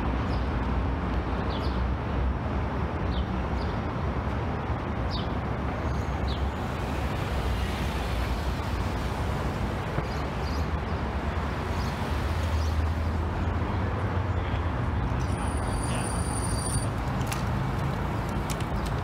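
Steady road traffic noise: a continuous hum of cars and other vehicles passing on the roads near the bridge, with no single event standing out.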